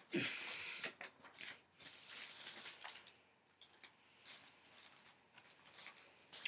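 Faint rustling and soft clicks and crinkles of things being handled and moved about by hand, in short irregular bursts.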